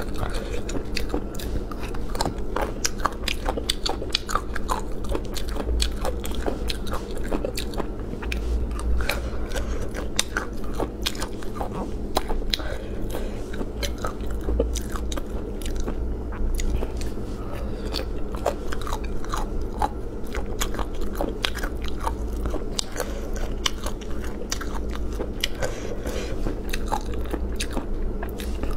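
Close-miked crunchy chewing of mala-spiced chicken breast cartilage, an unbroken run of crisp crackling bites over a steady low hum.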